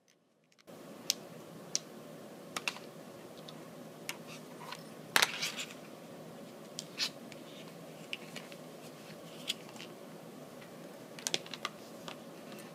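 Heat-shrink wrap being slit with a hobby knife and peeled off a brushless speed controller (ESC): scattered small clicks, scratches and plastic crinkles, loudest in a short cluster about five seconds in. A steady hiss comes in under a second in and runs underneath.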